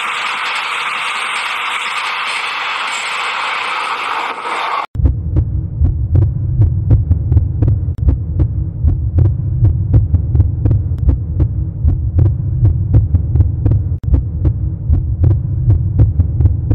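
A battery toy train's motor whirs steadily along its plastic track. About five seconds in it cuts abruptly to a louder low, heartbeat-like throbbing hum, a suspense effect laid over the broken-rail shot.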